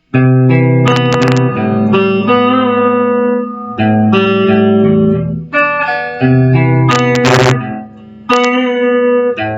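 Guitar playing a picked riff of single notes on open strings and low frets, the notes ringing into one another, with a couple of brief strums.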